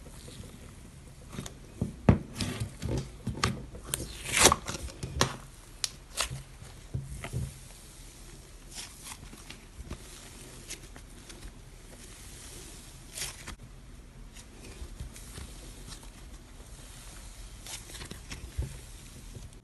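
Orange slime mixed with clay chunks and foam beads being poked, squeezed and stretched by hand, giving a run of crackling pops and sticky clicks. These are densest and loudest in the first several seconds, then thin out to occasional quieter clicks.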